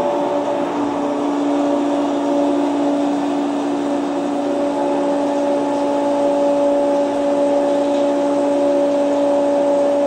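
Automatic soymilk machine running, its squeezer working the soy mash, with a steady hum of constant pitch.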